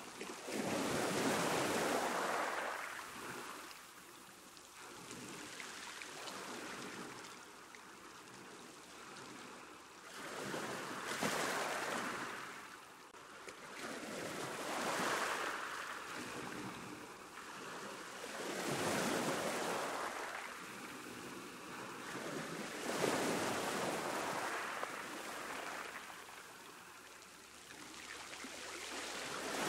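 Sea waves breaking and washing up a shore, one surge every four seconds or so, each swelling into a hiss of surf and fading away.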